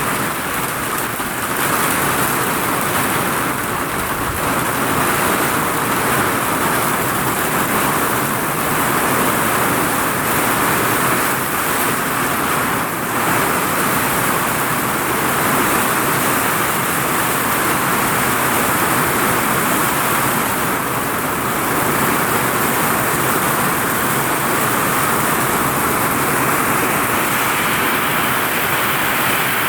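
Heavy rain falling on a vinyl roof: a loud, steady, dense hiss with no breaks.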